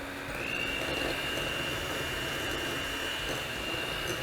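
Electric mixer running at high speed, beating cake batter: a steady motor whine that steps up a little in pitch a fraction of a second in as the speed is raised.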